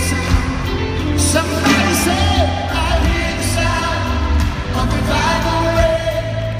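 Live worship band playing with singing, over a strong, steady bass line.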